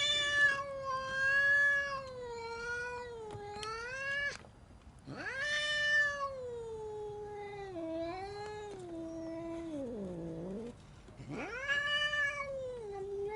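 Angry domestic cat yowling: three long, drawn-out, wavering yowls with short breaks between them, the middle one sliding down low at its end.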